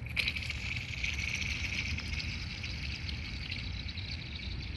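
Thin pond ice set ringing by an object thrown onto it, which skids across the surface. The ice gives a long, high, hissing whine that lasts several seconds and slowly weakens, with faint skittering ticks.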